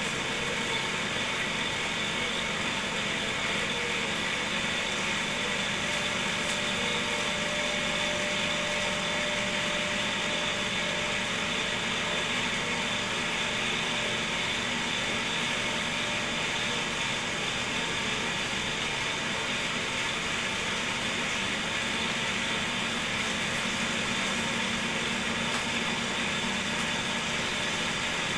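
Cotton candy machine with a DC motor running steadily, its spinning head making a constant whirring hum.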